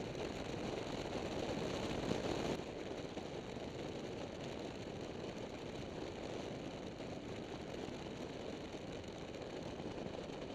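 Triumph Tiger three-cylinder motorcycle engine running under way, mixed with a steady rush of wind and road noise. The noise is louder for the first couple of seconds, then drops suddenly to a steadier, quieter level.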